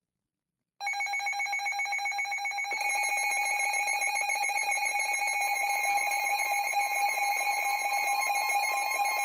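Emergency alert attention tone: a steady electronic alarm of several held tones that starts abruptly about a second in and grows slightly louder about three seconds in, the signal that announces an emergency alert broadcast.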